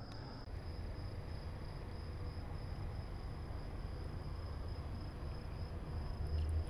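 A cricket's steady high trill, one unbroken pitch, with a low rumble underneath.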